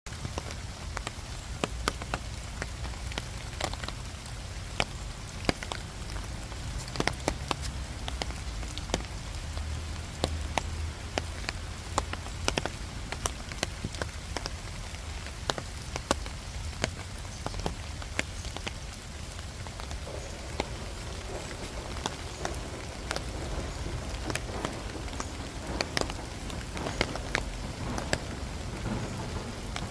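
Steady rain falling, with frequent sharp drops tapping close by over a low steady rumble.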